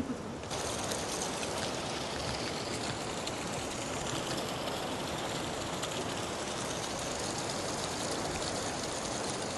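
Steady rush of running water, starting suddenly about half a second in.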